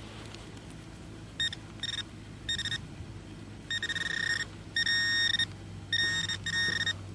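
Handheld metal-detecting pinpointer beeping over a dig hole. Short high beeps start about a second and a half in, then grow longer and closer together until they are nearly continuous near the end, as the probe closes on the buried target.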